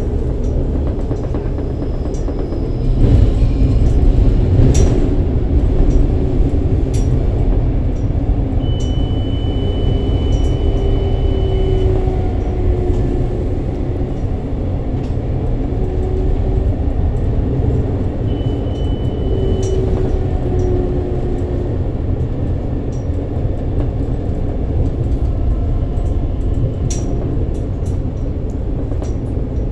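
Metro train running, heard from inside the car: a steady low rumble of wheels on track with a faint motor hum. A high steady tone is held for about three seconds near the middle and sounds again briefly a few seconds later.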